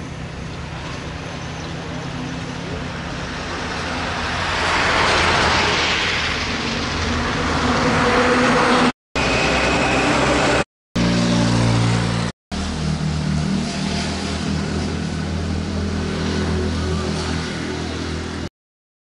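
Road vehicle running, a steady low engine hum with road noise, growing louder with a rush of noise about five seconds in. The sound drops out abruptly three times in the middle and stops shortly before the end.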